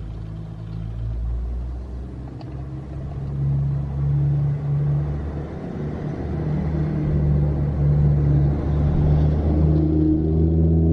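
A steady low engine hum, like a motor vehicle idling, swelling and easing in level, with a couple of faint clicks in the first few seconds.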